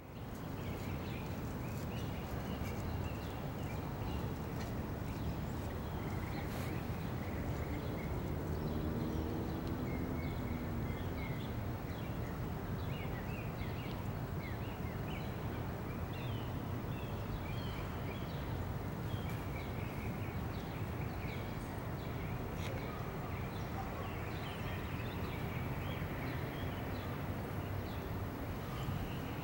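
Steady low city background rumble, with small birds chirping on and off throughout. A faint pitched drone rises and falls for a few seconds about nine seconds in.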